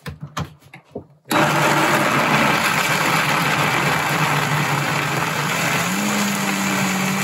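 JTC OmniBlend V high-power blender blending soaked tiger nuts with water. A few clicks and knocks as the jar goes onto the base, then about a second in the motor starts suddenly and runs loud and steady. Its hum steps up in pitch near the end.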